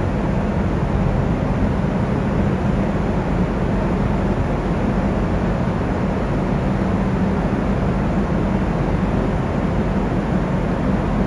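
Passenger ferry New Taima under way: a steady low rumble from the ship's engines with a broad, even rushing noise over it.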